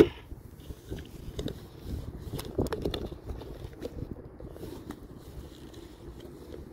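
Footsteps crunching through dry grass and clothing rustling against a handheld phone, with a sharp knock right at the start; the crackling thins out after about four seconds as the walker stops, leaving a faint steady rustle.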